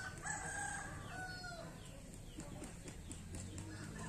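A rooster crowing once near the start: a long held call that drops in pitch at the end.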